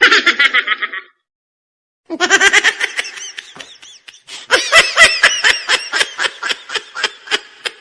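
High-pitched laughter in quick pulsing bursts. It cuts off abruptly about a second in, then comes back after a second of dead silence and runs on in ha-ha-ha pulses.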